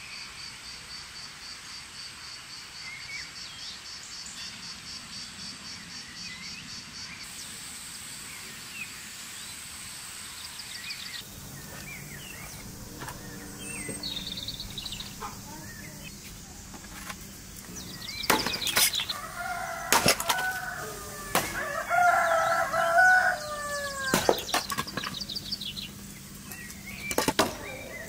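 An axe splitting firewood logs: several sharp chops in the second half. A rooster crows loudly between the chops, and birds chirp in the first half.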